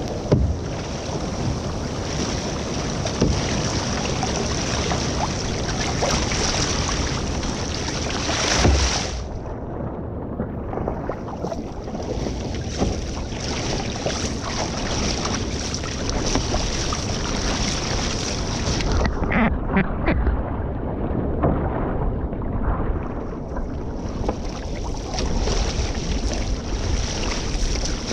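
Water rushing and splashing along the hull of a one-person outrigger canoe under paddle, mixed with wind buffeting the microphone. The high hiss drops away briefly twice.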